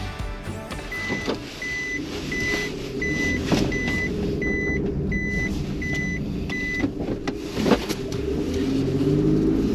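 Car engine running while an electronic warning beep sounds nine times at an even pace, about 0.7 s apart. A sharp knock comes near the end of the beeping, and the engine note rises near the end.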